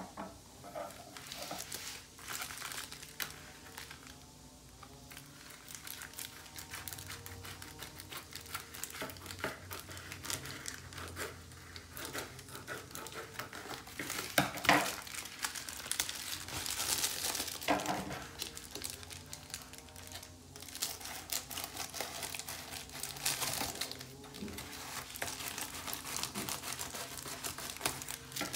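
Plastic bubble mailer crinkling and crackling as it is handled and cut open along its edge with scissors. Irregular crackles throughout, with one louder crackle about halfway through.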